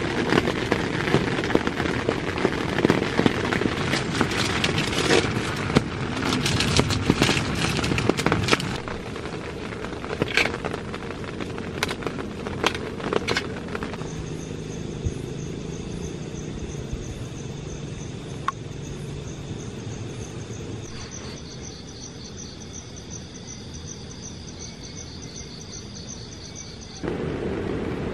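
A loud rushing noise full of sharp crackles and taps for about the first half. It then gives way to night insects, crickets by the sound, chirping in steady pulsing trills at several high pitches. A loud low rush comes back about a second before the end.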